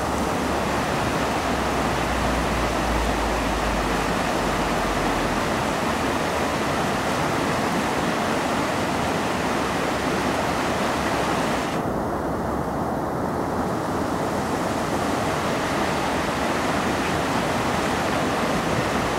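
Flood-swollen river rushing through rapids: a steady, loud noise of churning water.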